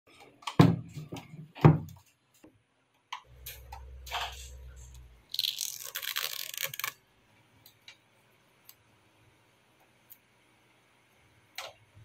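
Handling noise from a plastic car-audio subwoofer enclosure and its wiring harness. Two heavy thumps come in the first two seconds as the box is moved on a wooden table, then a low hum for about two seconds. After that comes a loud scraping rustle as the wires are worked in their corrugated plastic loom, and a few faint clicks near the end.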